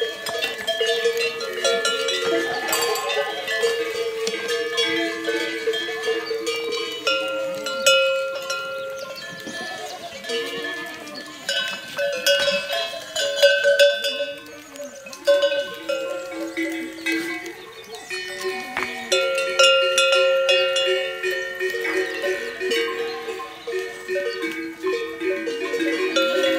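Many goat bells (cencerros) on a milling herd of goats, clanking and ringing at many different pitches at once, with goats bleating now and then.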